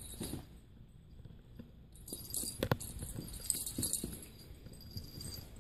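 A kitten playing with a cat wand toy on carpet: scattered soft taps and knocks, with faint high jingling from about two seconds in.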